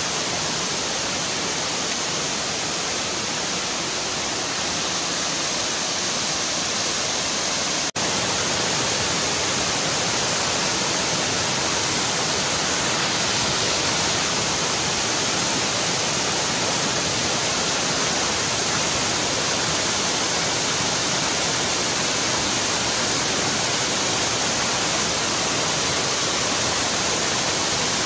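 Waterfall cascading over boulders into a rocky stream: a steady rush of water. About eight seconds in the sound cuts for an instant, then goes on slightly louder.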